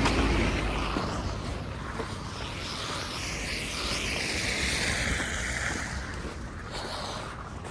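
A vehicle passing on a wet, slushy street: tyre hiss builds, is loudest about four to five seconds in, then fades away.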